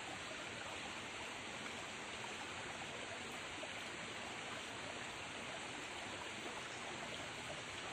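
Steady rushing of a small rocky freshwater stream flowing over stones.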